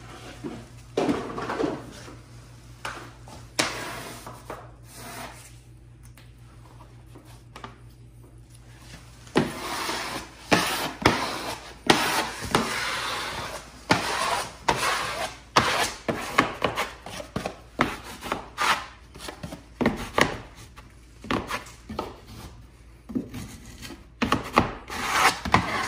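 Cork wallpaper being worked against the wall by hand: irregular rubbing and scraping strokes with occasional knocks, sparse at first and coming thick and fast from about ten seconds in.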